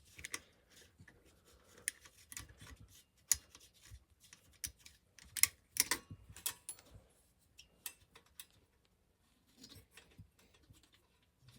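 Socket and extension clicking and scraping against the mower engine's cylinder head bolts as they are turned out by hand, in irregular light metallic clicks. The bolts are stiff with corrosion.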